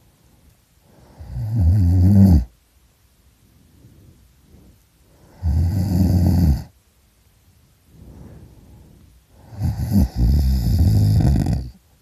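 A person snoring extremely loudly: three long snores about four seconds apart, each lasting a second or two, with quieter breaths in between.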